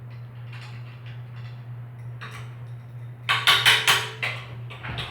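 Metal bicycle parts and hand tools clinking and knocking as the handlebars and headset are taken off: light scattered clicks, then a loud burst of rapid ringing metal knocks a little past the middle and one more knock near the end.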